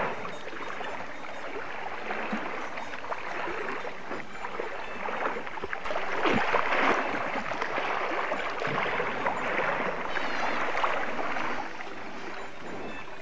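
Water splashing and sloshing as a cow swims through a river close to the microphone, louder for a few seconds from about halfway through.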